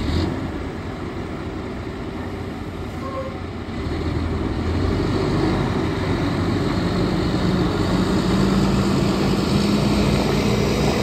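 2004 GMC T7500 dump truck's diesel engine pulling the truck away and past, getting louder about four seconds in and rising in pitch near the end as it speeds up. A short hiss right at the start.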